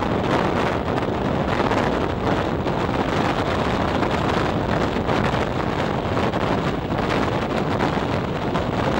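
Wind rushing over the microphone at an open window of a moving electric regional train, mixed with the train's steady running noise on the rails.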